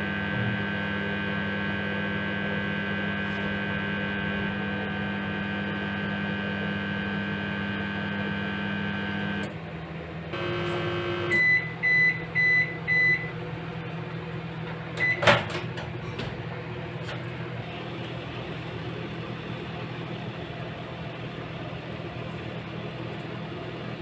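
Godrej microwave oven running with a steady electrical hum that stops about nine seconds in, followed by four short beeps signalling the end of cooking. A few seconds later comes a short beep and a sharp click, then a quieter steady hum continues.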